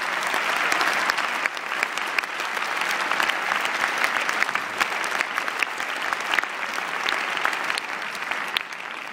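Large audience applauding, a dense, steady clatter of many hands clapping that slowly thins toward the end.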